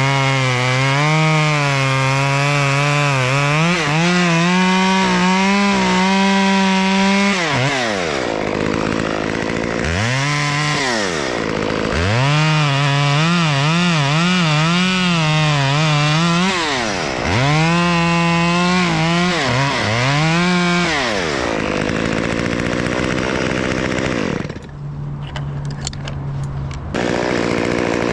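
Two-stroke chainsaw cutting branches. The engine revs up and holds, then drops away several times as cuts finish, and falls back to a lower steady idle for a few seconds near the end before revving again.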